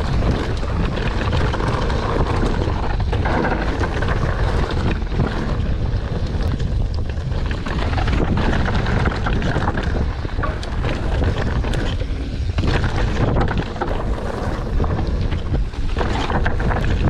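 Wind rushing over an action camera's microphone while a mountain bike rides a rough trail, with tyre noise and frequent knocks and clatter from the bike over the ground.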